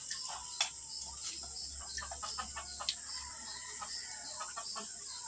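Domestic fowl making soft, short calls now and then over a steady hiss.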